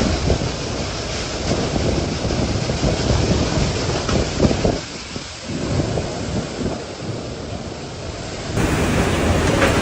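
Typhoon wind and rain in a gusting roar, buffeting the microphone. Near the end the sound switches abruptly to a louder, fuller rush of wind.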